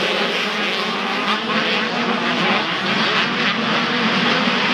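A pack of small two-stroke motocross bikes racing together at high revs, many engine notes overlapping and wavering in pitch as the riders work the throttle.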